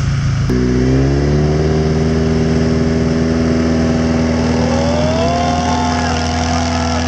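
Suzuki Samurai trial truck on UAZ military portal axles, its engine revving up sharply about half a second in and then holding high, steady revs under load as it crawls up a dirt mound.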